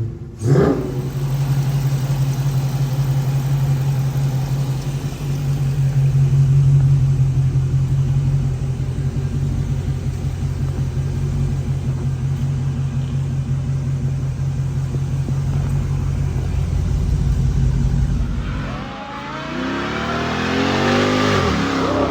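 Dodge Challenger Scat Pack's 6.4-litre HEMI V8, breathing through a new cold air intake: a quick rev blip at the start, then running steadily at raised revs for about eighteen seconds. Near the end it drops back and the engine note sweeps up and down in pitch.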